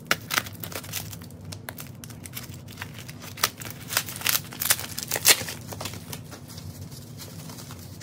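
Plastic wrapping crinkling and tearing as it is cut with scissors and pulled off a crystal tower: irregular crackles, loudest a little past the middle.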